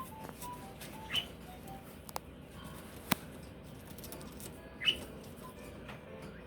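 A pet bird making short chirps: a few soft whistled notes at first, then brief, brighter chirps about a second in and again near the end, with two sharp clicks in between.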